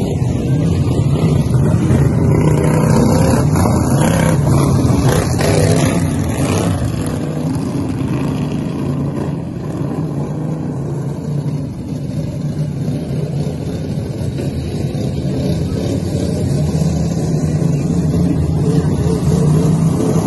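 Several racing lawn mowers' engines running hard together, their pitch rising and falling as they race around the track. The sound eases off a little about halfway through, then grows louder again near the end.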